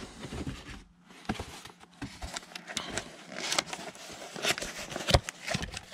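Cardboard boxes being handled and lifted out of a larger cardboard shipping carton: irregular scraping, rubbing and light knocks of cardboard on cardboard, with a sharper knock about five seconds in.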